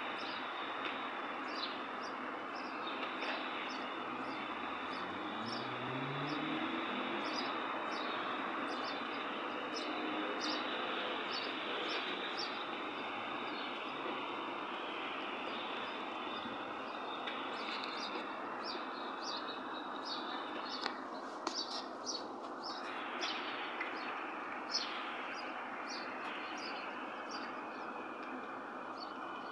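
Steady city background hum of traffic, with small birds chirping in short repeated calls throughout. An engine rises in pitch about five seconds in, and a few soft knocks come a little past twenty seconds.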